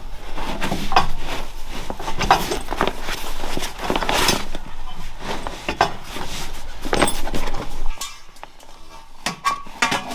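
A skottle's metal griddle parts being handled and packed into their padded carrying sacks: irregular knocks, clunks and fabric rustling, quieter after about eight seconds.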